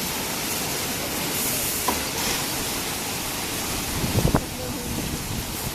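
Rollover automatic car wash machine spraying, a steady hiss of water jets, with a click about two seconds in and a low thump a little after four seconds.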